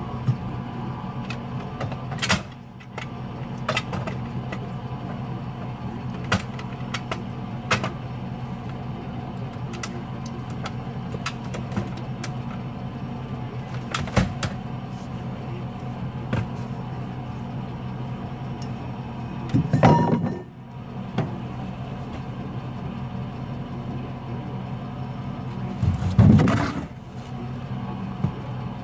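Pickup truck engine idling steadily, with scattered light clicks and knocks over it and two louder noises, each about a second long, about two-thirds of the way through and near the end.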